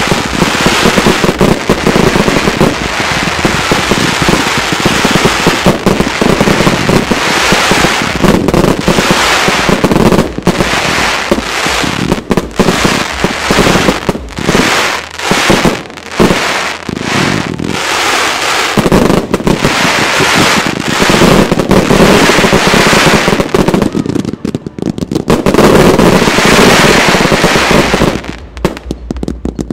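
Fireworks display: a dense, continuous barrage of aerial effects launching and bursting, bangs and crackle overlapping with hardly a gap. It eases off briefly twice near the end.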